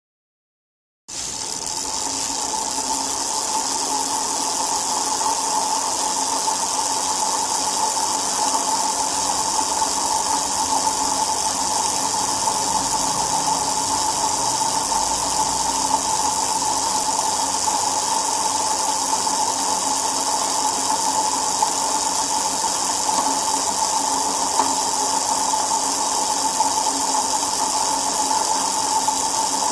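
Spinning wheel whirring steadily, with a constant mid-pitched hum and hiss. It starts about a second in and holds even throughout.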